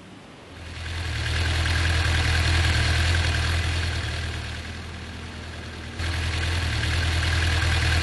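A steady low rumble with a hiss over it. It fades in about half a second in, eases off in the middle, then comes back louder all at once about six seconds in.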